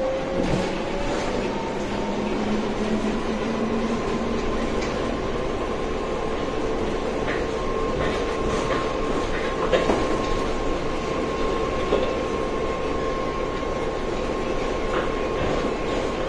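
Inside a RapidKL Monorail four-car train under way: a steady low rumble with a motor whine that rises a little in pitch over the first few seconds as the train gathers speed. Two short knocks come near the middle, about two seconds apart.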